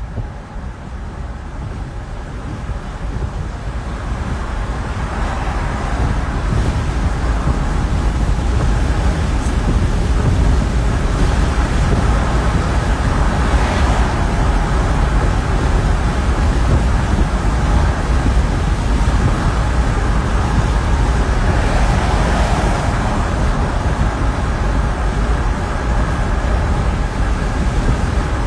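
Road and wind noise of a moving car heard from inside, a heavy low rumble that builds over the first few seconds as the car picks up speed and then holds steady.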